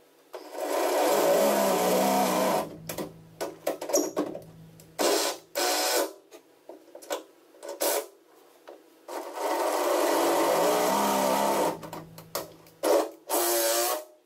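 Cordless drill running in bursts: two long runs of about two seconds each, rising in pitch as each starts, and several short ones. It is drilling out the existing holes in the Jeep Wrangler's sheet-metal rear wheel opening to size them for rivet nuts (nutserts).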